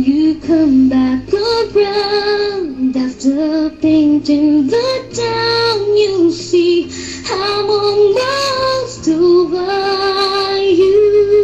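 A woman singing into a handheld microphone over a backing track, holding a long note near the end.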